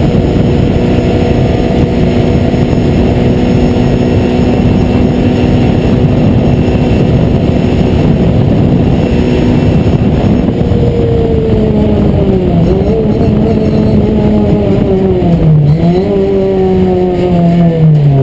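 Renault Clio Cup race car's four-cylinder engine heard from inside the cockpit, held at a steady high pitch at full throttle, with wind and road noise. About ten seconds in the note starts to fall, then dips sharply and picks up again three times as the car slows for corners.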